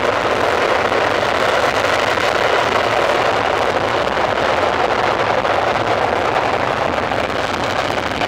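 Two Panavia Tornado jets' RB199 turbofan engines running at high power on the runway before a pair takeoff, a loud steady rushing sound.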